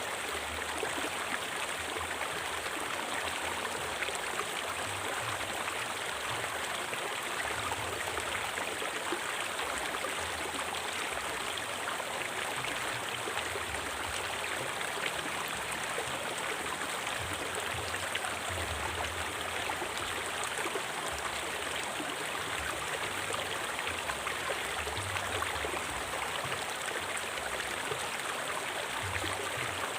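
River water flowing steadily: a continuous, even rush.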